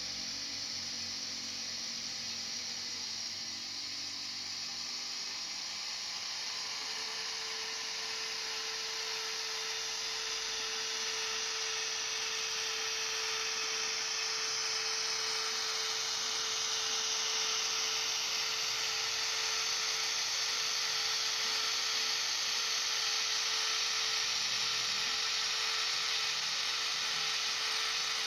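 Bemo RhB model locomotive's ESU LokSound decoder sound from its small onboard speaker as the loco runs slowly: a steady hiss with a held mid-pitched hum that comes in a few seconds in and holds. A faint falling whine is heard in the middle.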